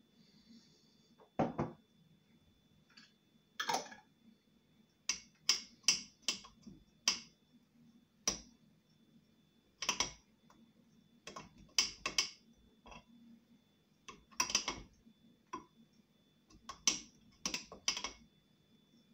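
Metal spoon stirring a thick milky drink in a blender jug, clinking against its sides in irregular taps, some in quick runs.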